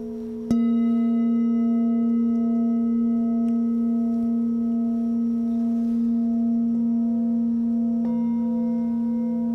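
Tibetan singing bowls struck with a padded mallet: one sharp strike about half a second in, then a second bowl struck near the end. Their long, steady, overlapping ringing tones layer over the ringing that was already sounding.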